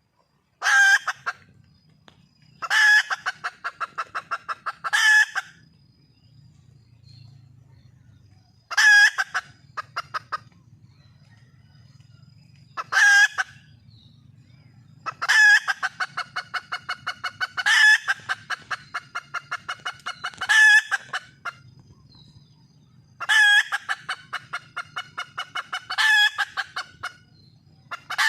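Wild hen (red junglefowl) calling repeatedly, each call a loud harsh note followed by a quick run of short clucks, every two to four seconds. It is calling for a male.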